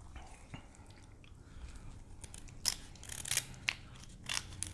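Kitchen scissors snipping through a grilled king crab leg shell. There is a quick run of sharp snips and shell crackles, starting a little past halfway.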